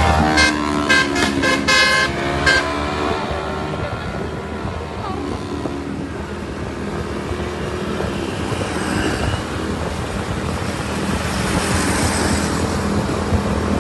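Bus telolet horn, a multi-tone musical air horn, giving a quick run of about six short toots in the first two and a half seconds. After that come steady vehicle engine and road noise.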